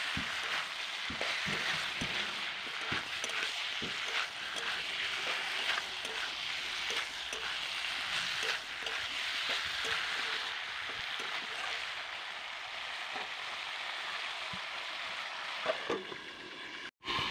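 Young jackfruit and potato pieces sizzling in oil in a metal karahi while they are dry-fried with spices, with a steady hiss. A metal spatula scrapes and knocks against the pan at irregular moments as they are stirred. Near the end a steel plate is set over the pan as a lid, with a few clinks.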